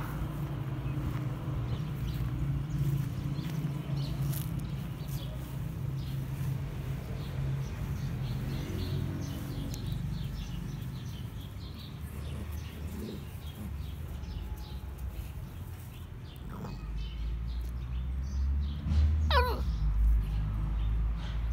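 A puppy playing with an adult dog: faint scuffling, then a sharp squeal about three-quarters of the way through that slides down in pitch, over a steady low rumble.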